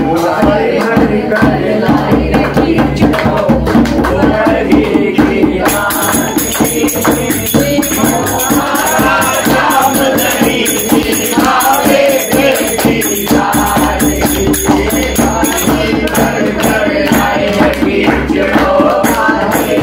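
A group singing a Hindu devotional bhajan in chorus to a dholak drum and hand clapping. A bright, steady jingling percussion joins in about six seconds in.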